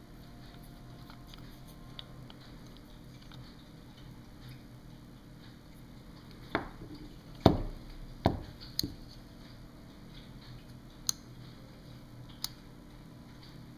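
Handling noise from a Shakespeare 2052 spinning reel being taken apart by hand: a few sharp clicks and knocks of its parts, four close together about halfway through and the loudest of them, then two lighter ticks near the end, over a faint steady hum.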